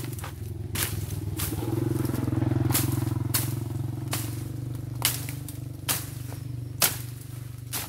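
Machete strokes slashing through weeds and brush: about nine sharp swishing cuts, roughly one a second. Underneath, a low engine hum runs steadily and swells briefly between about one and a half and four seconds in.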